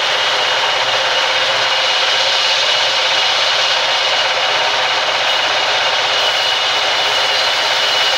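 Vertical band saw ripping a long wooden plank lengthwise: a loud, steady rasping noise with a thin high tone over it.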